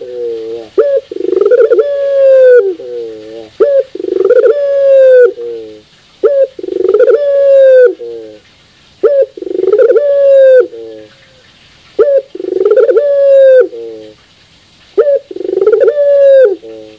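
A puter pelung, a Barbary dove kept for its loud, long coo, cooing over and over. Each call is a short note, a long held coo that drops off at the end, and a falling run of short notes. The call repeats about every three seconds, six times.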